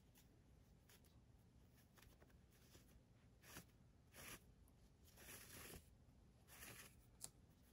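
Near silence with a handful of faint, brief rustles from about halfway in: fabric being handled as a strip is knotted onto a basket handle.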